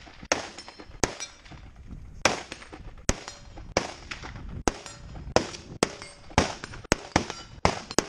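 Rifles firing single shots in an unhurried series, about a dozen sharp cracks at irregular intervals of roughly half a second to a second, as shooters engage targets.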